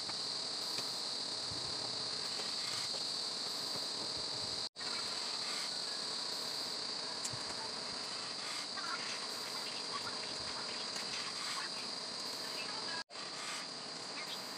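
Steady, high-pitched drone of crickets chirping in chorus. It cuts out for a moment twice.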